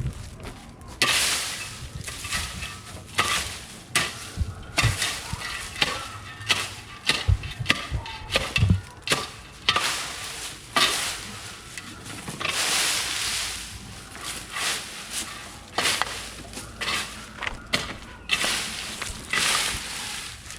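Dry plant material crackling and rustling in uneven bursts, with scattered sharp snaps.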